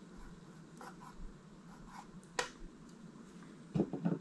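Faint clicks and scraping of hand tools and a feeler gauge working the valve adjusters on a Honda TRX125 engine's cylinder head. There is a sharper click about two and a half seconds in and a short, louder clatter near the end.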